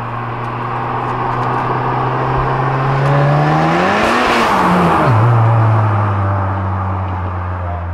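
Tuned Skoda Octavia RS estate with a turbocharged 2.0-litre four-cylinder driving past on throttle. The engine note climbs as the car approaches and peaks with a rush of tyre and wind noise about four seconds in. It then drops sharply in pitch as the car passes and pulls away.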